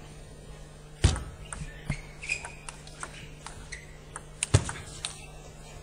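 Table tennis ball bouncing and being struck: a sharp knock about a second in, a run of lighter ticking bounces, then another sharp knock about four and a half seconds in.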